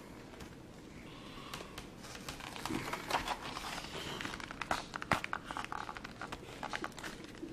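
A small pocketknife cutting and prying open a product's packaging: irregular crinkling, crackling and tearing with sharp clicks, busier from a couple of seconds in.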